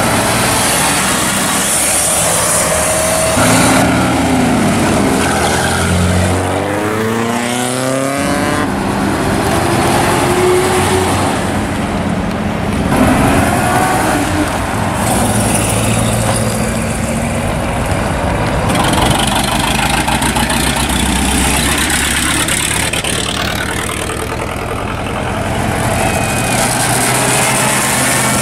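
Vintage pre-war cars driving past one after another: a Rolls-Royce speedster pulling away first, a 1928 Auburn boattail speedster around the middle, and a 1924 Locomobile near the end. Their engine notes rise in pitch as they accelerate past.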